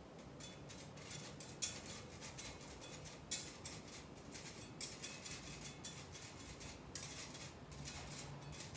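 A wire whisk scraping round and round inside a fine-mesh strainer, pushing flour and cocoa through into a stainless steel bowl: a run of quick, scratchy strokes, with a few sharper clicks.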